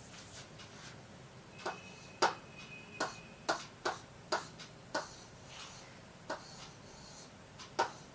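A stylus tip tapping and clicking against the glass screen of an interactive smart board as lines are drawn: about ten sharp, irregularly spaced taps starting about a second and a half in.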